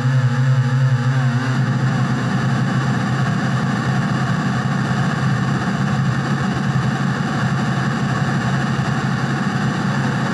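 Industrial noise music: a dense, steady wall of distorted noise over a low sustained hum. About a second and a half in, a pitched distorted synth layer drops out, leaving the harsh noise drone alone.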